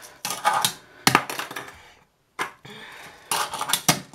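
Tech Deck fingerboard doing tricks on a small plastic sign obstacle: a run of sharp, irregular clacks and short scrapes as the board and its trucks land on and grind along the obstacle.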